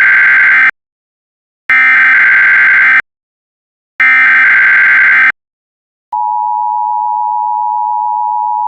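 Emergency Alert System tones: three harsh, buzzy bursts of SAME header data, each a little over a second long and about a second apart. A steady two-tone EAS attention signal follows after a short gap.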